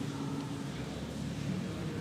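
Indistinct murmur of congregation members talking in a large church, with no clear words.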